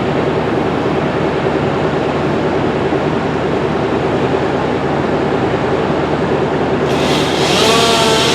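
Wood chipper engine running steadily. About seven seconds in, a brief, louder, higher-pitched burst with a wavering whine.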